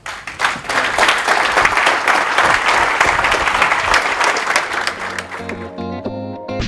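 Audience applauding, a dense clatter of many hands clapping that fades out about five seconds in as guitar music starts.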